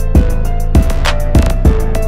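Background music: a beat with heavy kick-drum hits under a sustained melody.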